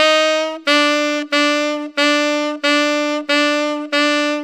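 Saxophone playing a slow, detached phrase: one held note, then six repeats of a note a half step lower, each about half a second long with a short break between.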